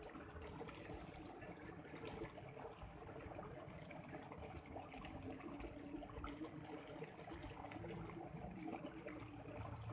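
Faint trickling water with small scattered clicks under a low background hum.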